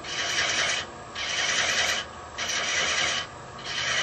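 A 16 teeth-per-inch hand thread-chasing tool scraping against wood spinning on a lathe, in four short passes of about a second each with brief breaks between them, over the low hum of the lathe. These are the first light cuts that start the threads.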